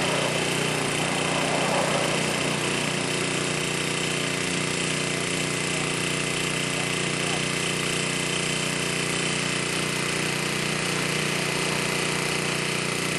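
A steady, unbroken mechanical running noise with a constant hum, like a motor or engine running without pause.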